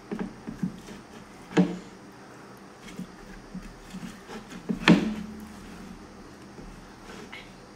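Fingers scraping and gathering leftover rice off a plate, with light scattered clicks and two louder knocks, about a second and a half in and near five seconds in, the second the loudest.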